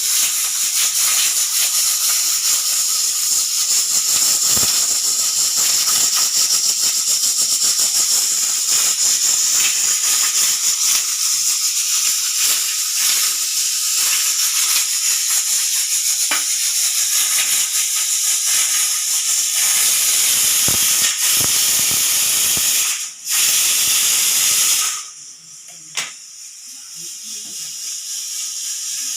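Pressure cooker whistle letting off steam in a loud, steady hiss. The hiss breaks off briefly, comes back, then stops abruptly about 25 seconds in. A single click follows, and then a fainter hiss slowly builds again.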